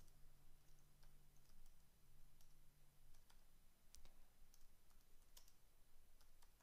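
Faint computer-keyboard typing: scattered single keystroke clicks over a low steady hum.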